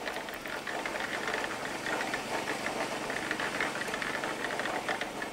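Drum concrete mixer driven by a small engine, running steadily.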